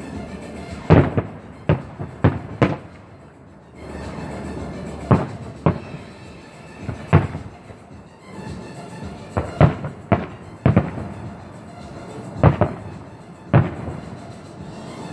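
Aerial firework shells bursting in a display: about a dozen sharp bangs at irregular intervals, several coming in quick clusters of two or three.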